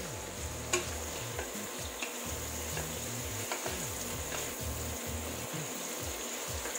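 Shrimp sizzling in a stainless steel wok, stirred with a wooden spatula that knocks and scrapes against the pan now and then. The sharpest knock comes just under a second in.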